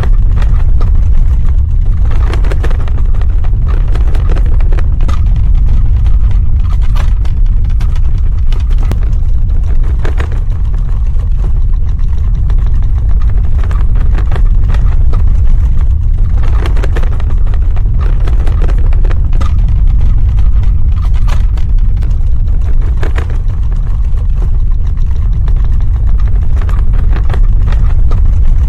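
Earthquake sound effect: a loud, continuous deep rumble, with crackling, rattling noise that swells and fades every few seconds.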